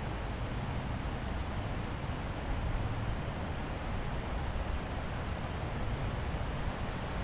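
Wind buffeting the microphone: a steady rushing hiss with an uneven low rumble.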